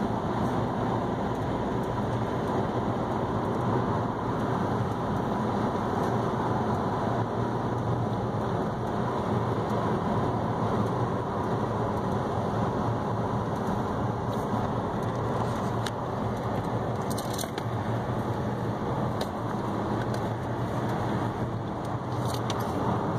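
Steady road noise of a car driving, heard from inside the cabin: a low, even rumble of tyres and engine, with a few faint ticks in the second half.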